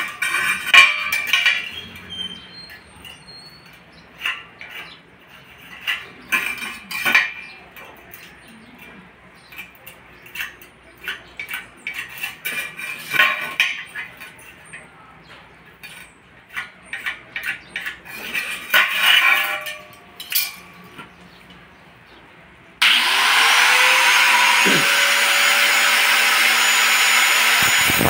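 Light clinks and knocks of galvanized-iron square tubing being handled and marked out. About 23 seconds in, an electric angle grinder switches on, its whine rising as it spins up and then holding steady, and near the end its cut-off disc bites into the 2x2 GI tube, louder.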